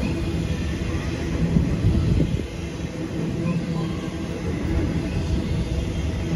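A train on the move: a steady low drone with continuous rumbling noise from the rails.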